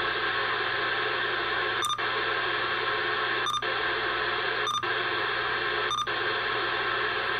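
Uniden Bearcat CB radio on lower sideband putting out steady static hiss with no signal: lots of static. The hiss is broken four times by a brief dropout and short beep as the channel is stepped down.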